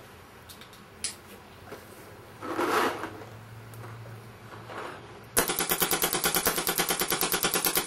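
Modified Sandridge Force 5 paintball marker with a homemade electronic trigger firing on full auto: a rapid, even string of shots that starts about two-thirds of the way in and keeps going. Before it, a few faint clicks and a short rush of noise.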